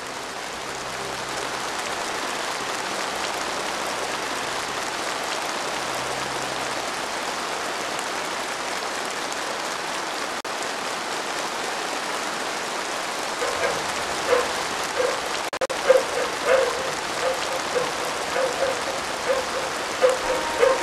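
A large crowd applauding steadily. From about two-thirds of the way in, short pitched calls repeat about twice a second over the clapping.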